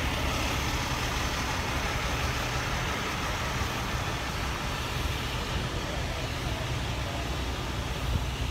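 Semi truck's diesel engine idling steadily, a constant low rumble under a haze of outdoor yard noise.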